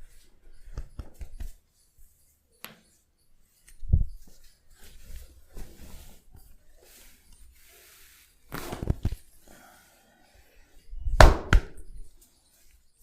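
A few sharp slaps and knocks from hands working in a head and back massage, spaced seconds apart. There is a low thump about four seconds in, and the loudest is a quick double strike near the end.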